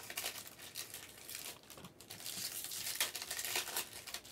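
Foil-wrapped trading card packs crinkling as they are handled: a light, irregular crackle of plastic wrappers.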